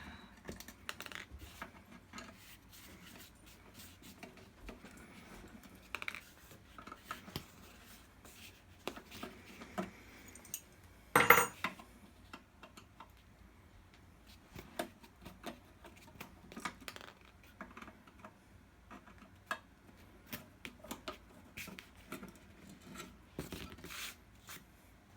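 Hand tools and screws clicking, tapping and scraping against a video encoder's case while it is unscrewed for disassembly, with one louder clatter about eleven seconds in.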